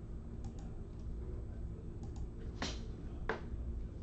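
A steady low electrical hum with a few sharp clicks: faint ones early on, then two louder ones less than a second apart past the middle.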